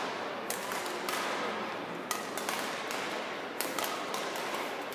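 Badminton rackets striking a shuttlecock: a scattered series of sharp taps over a steady background hum.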